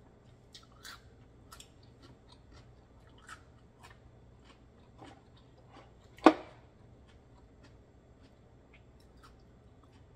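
Scattered light clicks of raw oyster shells being handled on a platter, with one sharp shell-on-shell click about six seconds in.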